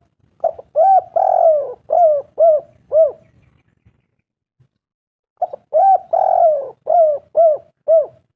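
Spotted dove cooing: two identical song phrases about five seconds apart, each a short opening note followed by a run of coos, the second coo drawn out longer than the rest.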